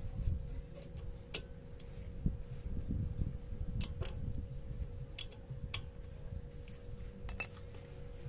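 Scattered sharp metal clicks of a small hand tool on the bolts of a motorcycle engine's oil filter cover, about six at uneven intervals. Under them is a low rumble and a faint steady hum.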